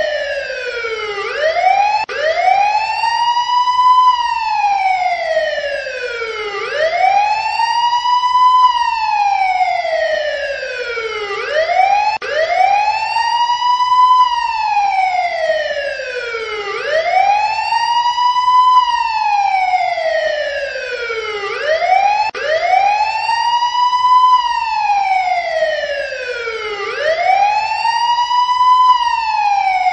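Emergency-vehicle siren in wail mode, its pitch gliding slowly up and back down in a steady cycle that repeats about every five seconds.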